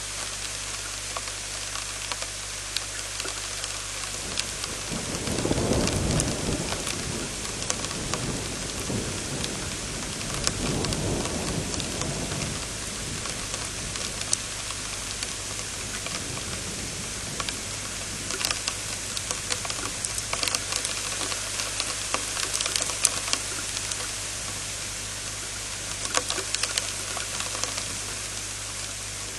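Thunderstorm: steady rain hiss with many sharp drop ticks, and thunder rumbling twice, about five seconds in and again around ten seconds in.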